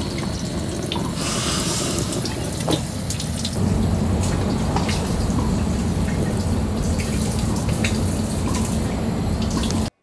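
Water running from an outdoor tap and splashing onto a rubber boot held under it, getting a little louder a few seconds in.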